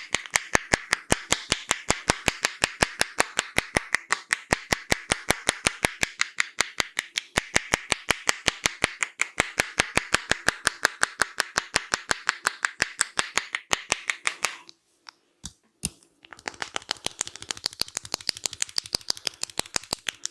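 A barber's hands making a fast, even run of sharp snaps on a client's head during a head massage, about five a second. The run breaks off about fourteen seconds in, two single snaps follow, then it starts again more quietly.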